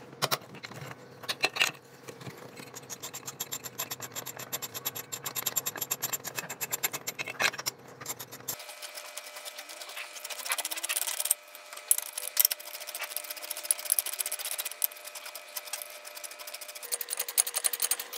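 Ratchet wrench clicking rapidly as the cylinder head nuts of a Yamaha DT100 two-stroke engine are loosened, with small metal clinks of the nuts and tools.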